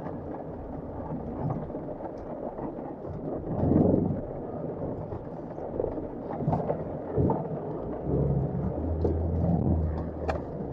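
Heavy rain drumming and ticking on the windscreen and body of a Land Rover Defender 110, heard from inside the cabin, with the truck's engine running low underneath as it crawls over rock. A heavier rumble swells about four seconds in, and the engine note comes up more strongly near the end.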